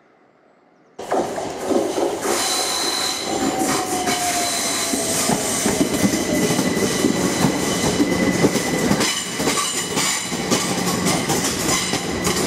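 London Overground Class 378 electric multiple unit running along the platform close by, starting abruptly about a second in. Its wheels click over the rail joints, and a squeal slowly falls in pitch over a few seconds.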